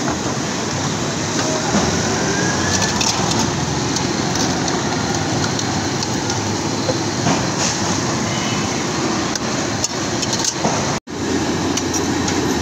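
Steady noise of a street stall's drum-shaped deep fryers, oil sizzling, with a few light metal clinks. The sound drops out for an instant near the end.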